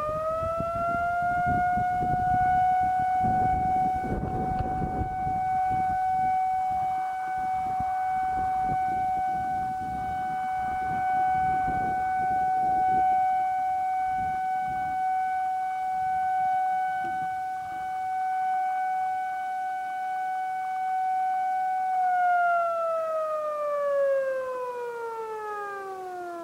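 Outdoor disaster-prevention radio loudspeaker sounding its siren as the noon time signal: one long wail that settles at a steady pitch just after the start, holds for about twenty seconds, then glides down near the end. Wind rumbles on the covered microphone through most of the steady part.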